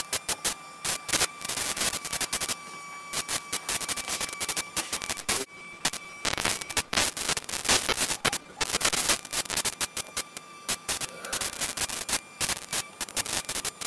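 Electrical interference in the audio: dense, irregular crackling static over a steady high whistle, with brief lulls in the crackle. The uploader takes it for extraterrestrial interference with the camera and devices.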